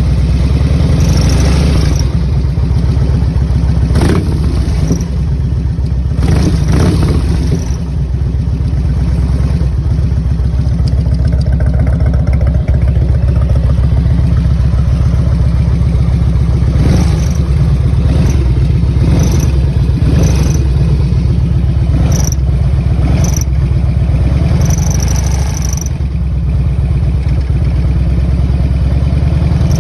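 Motorcycle engine running steadily, with a short unidentified chirp recurring at irregular intervals over it.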